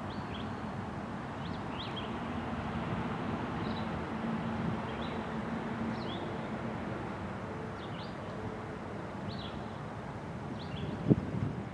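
Freight cars loaded with waste containers rolling past at steady speed: an even rumble of steel wheels on rail with a faint hum. A bird chirps over it about once a second, and there is a single sharp clank near the end.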